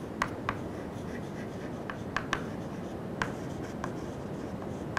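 Chalk writing on a chalkboard: irregular sharp taps and short strokes of the chalk as words are written, over a steady background hiss.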